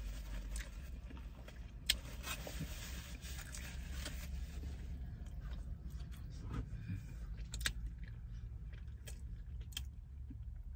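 A person biting and chewing a sandwich, with small wet clicks and the paper wrapper crackling, over a low steady hum.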